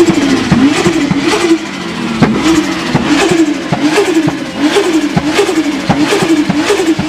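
Turbocharged car engine revved in quick repeated throttle blips, the pitch rising and falling about every two-thirds of a second, with sharp pops or cracks between the revs.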